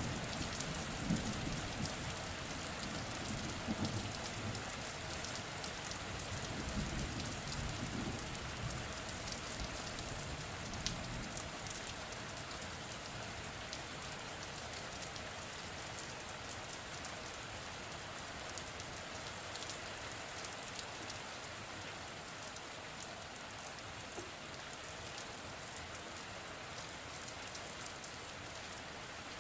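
Steady rain falling, with a low thunder rumble dying away over the first several seconds.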